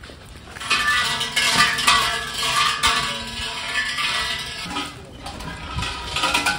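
Large shrine suzu bell being shaken by its hanging rope: a jangling metallic rattle that starts about a second in and runs for several seconds, then starts again near the end.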